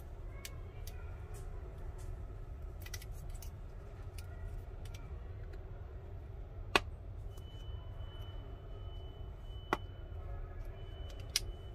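Hands pressing a replacement screen into an iPhone 13 Pro's frame: faint handling taps and three sharp clicks, the loudest about two-thirds of the way in, over a low steady hum.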